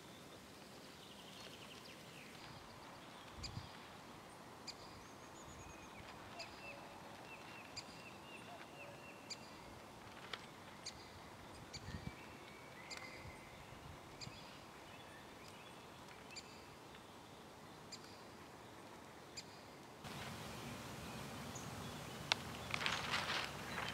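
Songbirds chirping and calling over a quiet open-air background, with a couple of soft thumps. Near the end a burst of loud rustling.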